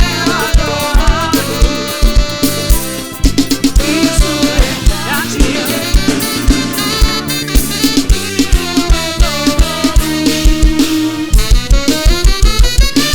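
Live band music from a gospel show's mixing desk, an instrumental passage: drum kit with a regular kick-drum beat under brass and other instruments, the drum strikes coming faster near the end.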